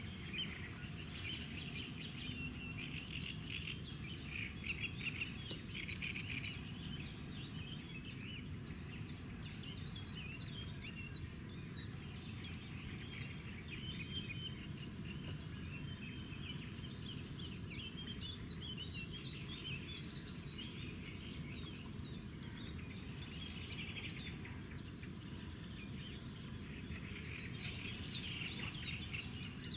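Many small birds chirping and twittering together in a dense, continuous chorus, over a steady low background rumble.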